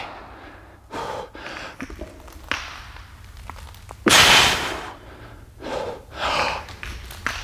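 A weightlifter breathing hard under a heavy barbell during a set of back squats: a series of short, sharp breaths and exhales, the loudest a long hissing exhale about four seconds in.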